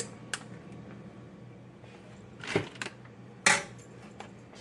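Kitchen handling noises while shredded cheese is layered into a baking dish: a light click just after the start, a brief scrape about two and a half seconds in, and a sharper, louder clatter about three and a half seconds in.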